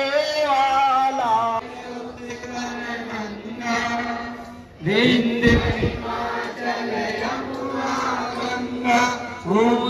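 Voices singing a chant-like song with long held notes. A brief low rumble sounds about halfway through.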